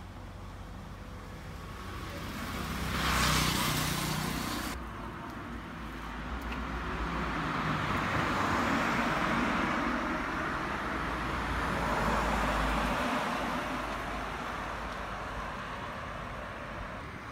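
Road traffic on a town street: cars passing, rising and falling as they go by, once about three seconds in and again in a longer swell through the middle.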